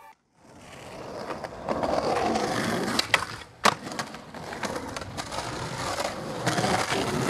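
Skateboard wheels rolling over rough pavement, growing louder, with two sharp board clacks a little over half a second apart about three seconds in.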